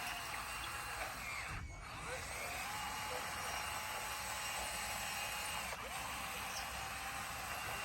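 Bulldozer running under load with a machine whine that holds steady, drops in pitch about a second in, rises again, and drops once more near the end.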